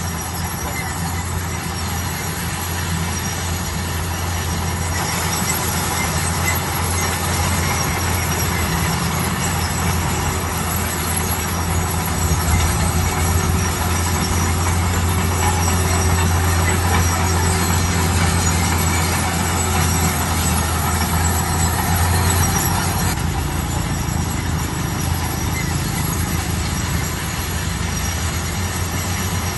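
Bulldozer at work, its engine a steady, loud, low drone with mechanical grinding over it; the drone eases off a little about twenty-three seconds in.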